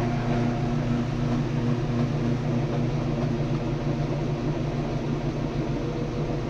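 Whirlpool washing machine's motor and drive running with a steady hum after lubricant was sprayed onto its seized brake drum and brake pad, so the brake has freed and the machine runs without the locked-brake drag.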